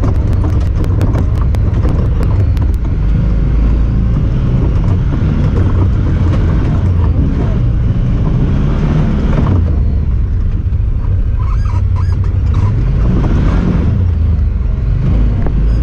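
Honda Talon 1000R side-by-side's parallel-twin engine running under way, a steady low rumble with road and driving noise over it. A rapid clicking is heard in the first couple of seconds.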